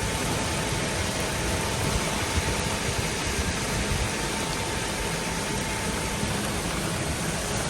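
Golf cart driving in rain: a steady hiss of rain and moving cart, with a faint steady tone that stops about six and a half seconds in.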